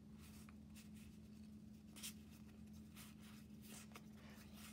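Faint, irregular slides and flicks of glossy trading cards being moved one behind another in the hands, a little louder once about two seconds in, over a low steady hum.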